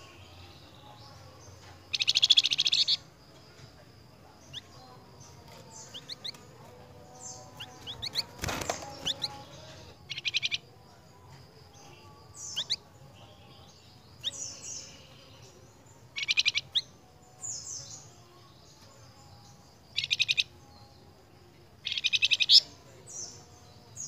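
Caged flamboyan songbird singing: loud, fast rattling phrases of half a second to a second, repeated every few seconds, with short high chirps and whistled notes between them. A single sharp knock about eight and a half seconds in.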